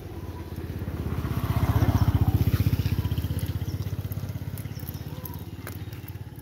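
A small-engined vehicle passing by: a fast, pulsing engine note grows louder to a peak about two seconds in, then fades away.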